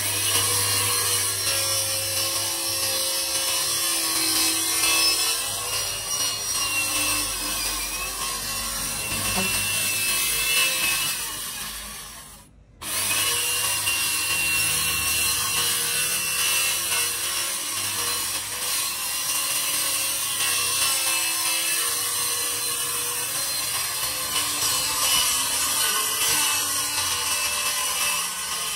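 Bosch circular saw running and cutting through a board, a steady loud cutting noise with the motor's tone running through it. About twelve seconds in the sound sags and breaks off for a moment, then the cutting starts again at full level and carries on.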